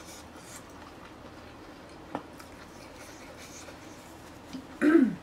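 Quiet eating sounds: faint chewing and small clicks, with one sharper tick about two seconds in, from someone gnawing braised beef short ribs. Near the end comes a brief vocal sound, falling in pitch.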